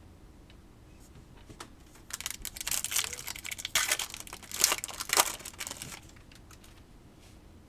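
Baseball card pack wrapper being crinkled and torn open: a dense run of sharp crackles from about two seconds in until about six seconds in.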